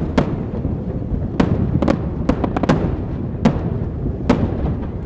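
Fireworks shells bursting in a rapid, irregular run of about nine sharp bangs, several close together near the middle, over a continuous low rumble.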